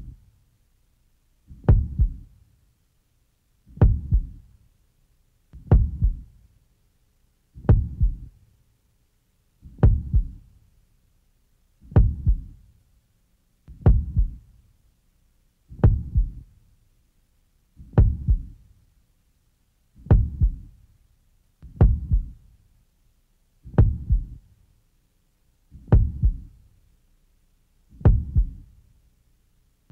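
Slow heartbeat sound effect: a low thud with a sharp attack, repeating steadily about every two seconds.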